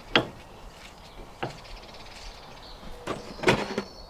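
Sharp clicks and knocks of a brake caliper and an old brake pad being handled while the caliper piston is pushed back in. There is one knock near the start, another about a second and a half in, and a quick cluster near the end.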